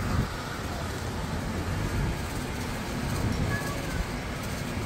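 Steady low rumble of outdoor city background noise, with faint voices of people nearby.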